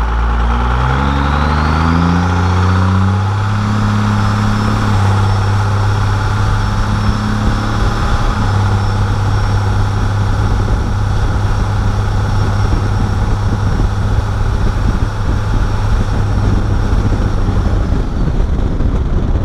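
First-gen Cummins 12-valve 5.9 L inline-six diesel accelerating, its note climbing over the first few seconds while the new HX35-based turbo spools up with a rising whistle. It then settles into a steady cruise with the turbo's high whistle held above the engine drone.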